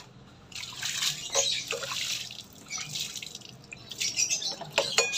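Water poured from a plastic dipper splashing over a scooter's front disc-brake caliper, rinsing off soap. It comes in two pours, the first about half a second in and the second about four seconds in.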